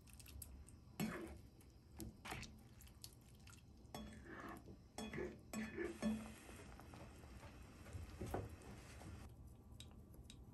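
A ladle stirring tofu and shrimp in broth in a frying pan, knocking and scraping against the pan several times, with the liquid sloshing and simmering.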